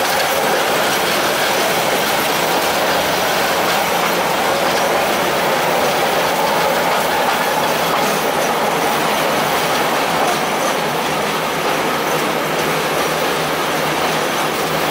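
Narrow-gauge rail gang car (track motor car) running along the track: a loud, steady mix of motor and steel wheels on the rails.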